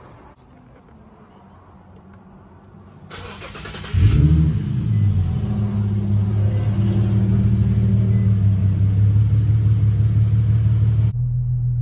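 2015 Infiniti Q60's 3.7-litre V6 starting up about four seconds in, with a short rise in revs, then settling into a steady idle.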